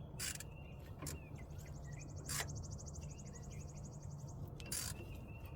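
A few separate sharp clicks from hand tools at a car battery terminal, over a steady low hum. A high, evenly pulsing insect trill runs through the middle, with faint bird chirps.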